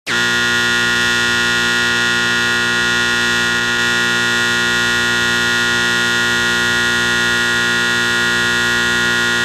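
Alarm klaxon horn sounding one long, loud, steady blare at a fixed pitch, starting abruptly.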